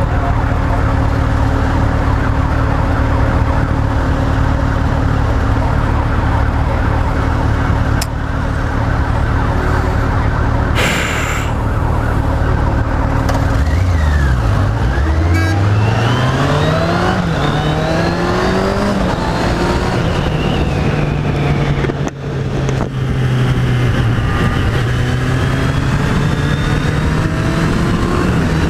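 Kawasaki Z800's inline-four engine running steadily at low revs, then about halfway through its pitch dips and climbs as the bike pulls away, rising and falling through the gears.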